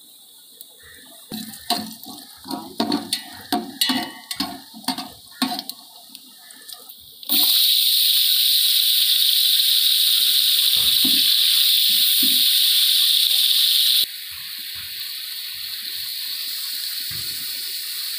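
A run of knocks and clatter against a metal pot. About seven seconds in, a loud, steady sizzle starts suddenly as sliced onions hit hot oil. About halfway through it drops to a quieter steady sizzle of onions frying, with a few scrapes and knocks of the ladle.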